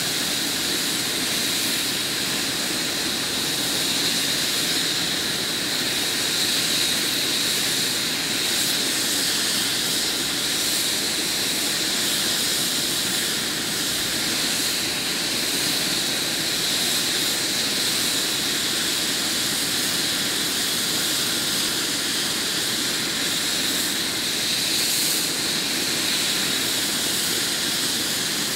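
Air-ambulance helicopter's turbine engine running: a steady high whine over a constant rushing noise.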